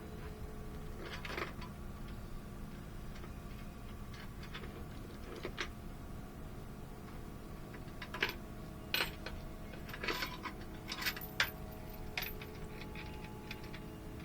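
A truck engine idling steadily, with a scattering of short metallic clicks and clinks over it.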